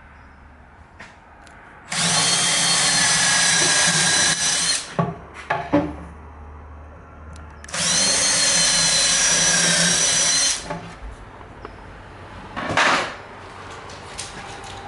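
Cordless drill boring two holes through a plywood drawer box, two runs of about three seconds each, the motor's pitch sagging a little as each run goes on. A few knocks fall between the runs, and there is a short burst of noise near the end.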